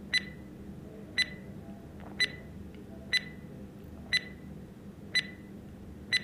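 Quiz countdown-timer sound effect: a short, sharp ticking beep once a second as the clock counts down, over a faint steady hum.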